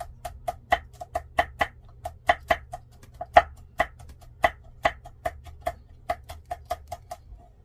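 Kitchen knife slicing chili peppers on a cutting board: quick, even chopping strokes about four to five a second, stopping about seven seconds in.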